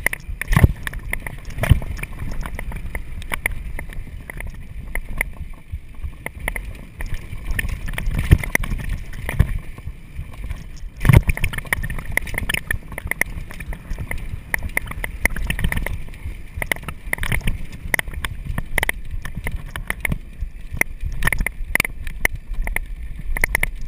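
Mountain bike riding fast over a dirt singletrack: wind rumbling on the microphone, tyres running on dirt, and frequent knocks and rattles as the bike hits bumps, the hardest jolt about eleven seconds in.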